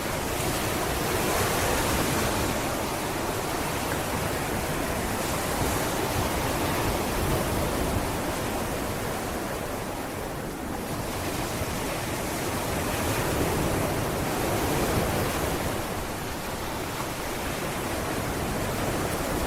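Sea waves washing onto a beach: a steady rush of surf that swells and eases slowly, with a brief lull about halfway through.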